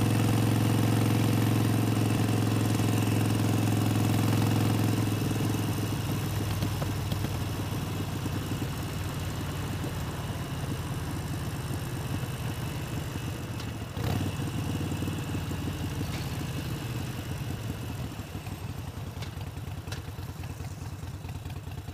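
Harley-Davidson Sportster 72's air-cooled 1200 cc V-twin running at a steady cruise, heard from the rider's seat. After about five seconds the tone drops and gets quieter, and the separate firing beats come through as the bike eases off toward an intersection. There is a single knock about two-thirds of the way through.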